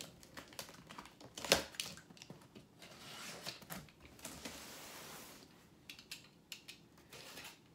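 A cardboard shipping box being handled and opened: a string of clicks and knocks, one sharp knock about a second and a half in, and a few seconds of steady tearing or rustling noise in the middle.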